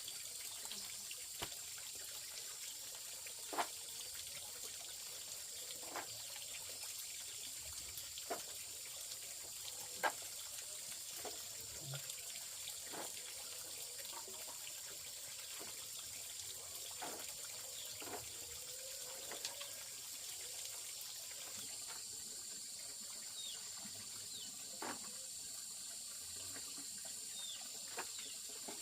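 Water trickling, with separate small drips or splashes every second or two over a steady high hiss.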